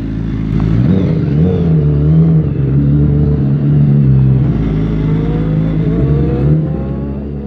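Racing motorcycle engine running in a pit garage and being revved, its pitch climbing and falling several times between steadier stretches.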